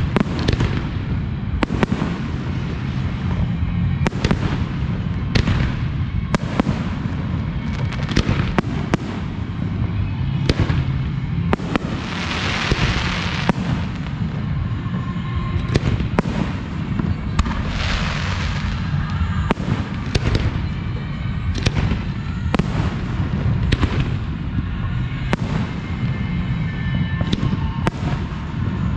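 Professional fireworks display: a steady string of sharp bangs from shells launching and bursting over a continuous low rumble, with two longer spells of hiss about twelve and eighteen seconds in.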